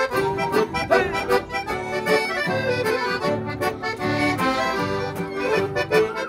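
Accordion leading an instrumental interlude of a xote, a southern Brazilian dance tune, over a steady rhythmic accompaniment.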